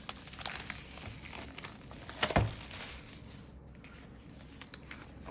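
Album packaging and paper being handled: rustling with scattered light taps and one louder knock about two seconds in.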